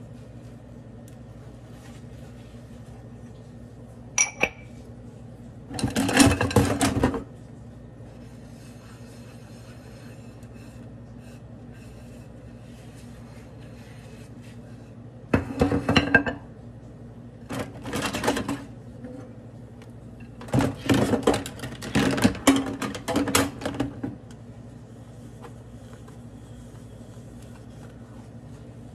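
Dishes being hand-washed in a stainless steel sink: several bursts of ceramic clattering and sponge scrubbing, the longest lasting three or four seconds, over a steady low hum.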